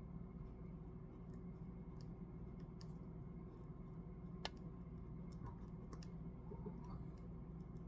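Handwriting: a pen on paper making scattered light ticks and scratches, with one sharper tick about four and a half seconds in, over a steady low room hum.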